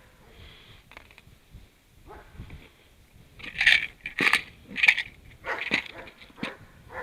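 A dog barking about six times in quick succession, a little over halfway through.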